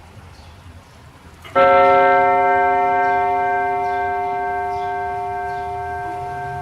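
Vintage two-train (time-and-strike) clock striking its gong once, the sudden hit followed by a long, slowly fading ring of many tones over faint ticking.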